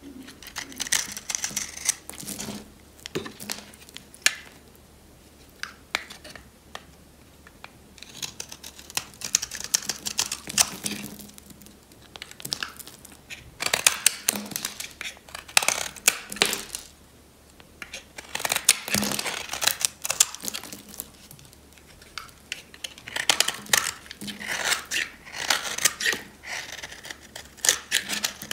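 A snap-off utility knife blade shaving and cutting a bar of dry soap: a crisp crackling crunch as brittle flakes break away. It comes in runs of quick strokes a few seconds long, with short pauses between.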